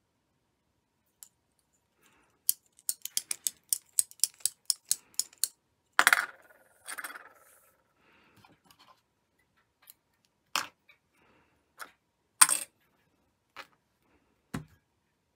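Handling noise from tatting lace: a quick run of about a dozen light clicks, around four a second, then a scrape and scattered taps and knocks as the tatting shuttle, thread and yarn bowl are handled.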